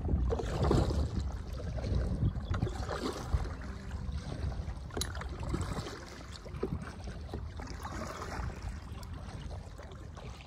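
Kayak paddle strokes: the blades dip and pull through the water, splashing and trickling in uneven swells every second or two, with an occasional light knock.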